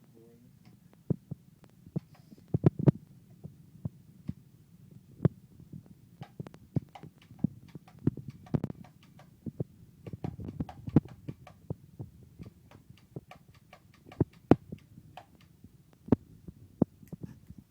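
Chiropractic table's toggle headpiece clicking and knocking at irregular intervals over a steady low hum.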